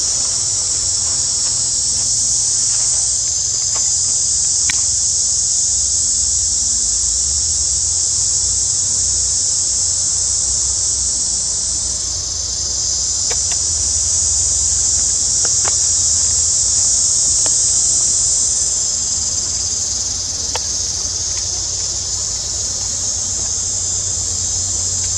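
Loud, steady, high-pitched buzz of a daytime insect chorus, most likely cicadas, running without a break. A few faint ticks sound over it.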